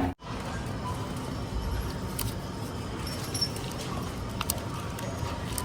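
Steady ambient background noise with scattered small clicks and rattles.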